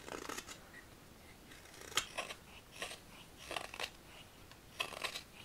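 Carving knife slicing shavings from a green walnut ladle: about half a dozen short scraping cuts with brief pauses between them, and a sharp click on one cut about two seconds in.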